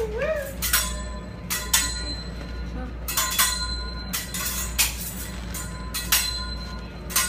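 Metal cooking utensils clanking against a hibachi griddle: about ten irregular strikes, each ringing briefly, over a steady low hum.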